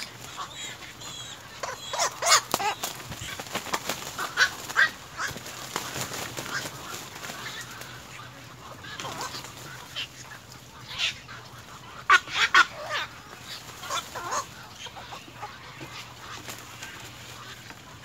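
Harsh squawking calls of black-crowned night heron chicks, coming in short clusters every few seconds and loudest about twelve seconds in.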